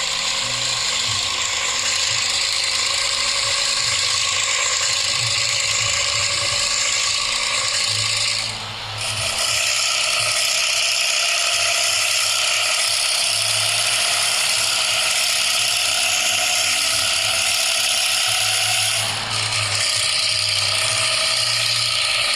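Hino truck diesel engine with a gutted ('bobokan') muffler, running with a rough, rattling 'ngorok' snore. It drops away briefly twice, about a third of the way in and again near the end.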